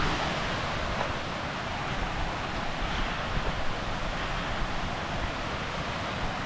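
Steady rushing of a mountain stream cascading down rocks, with wind buffeting the microphone underneath.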